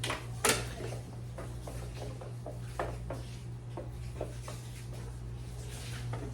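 Scattered clicks and knocks of hands and a tool working at car door trim, with one sharp knock about half a second in, over a steady low hum.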